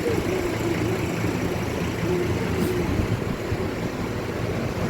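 A motor vehicle engine running steadily, a low continuous rumble, with a faint wavering tone above it.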